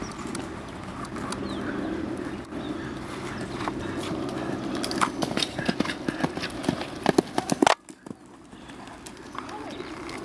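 Hoofbeats of a horse cantering on an arena's sand footing, growing louder as it comes close and loudest a little after seven seconds in, then dropping off suddenly, over a steady low rumble.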